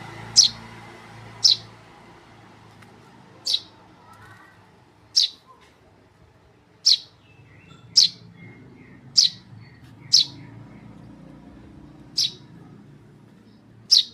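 Young Eurasian tree sparrow chirping: about ten single, sharp, high chirps, one every second or two at uneven gaps.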